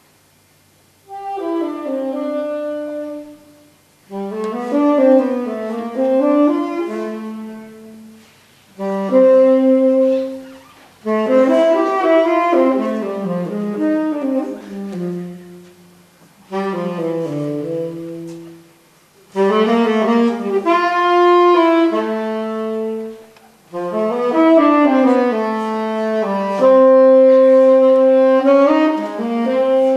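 Solo saxophone playing a slow melody in phrases of a few seconds, with short pauses between them, starting about a second in.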